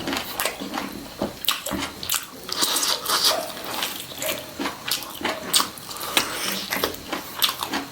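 Close-miked eating of a chicken leg: biting and chewing the meat with wet smacking mouth sounds and many quick clicks.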